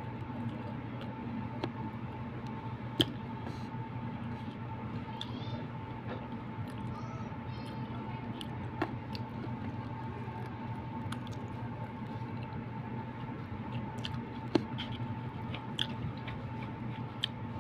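Close-up chewing of soft siomai dumplings, with scattered light clicks as a wooden stick picks at the food in a paper tray; a sharper click about three seconds in. A steady hum runs underneath.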